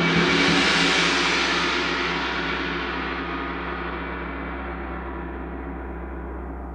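A 36-inch KMK KWG-36 white gong (tam-tam) ringing loud with a shimmering wash that swells to its peak about a second in, then slowly dies away.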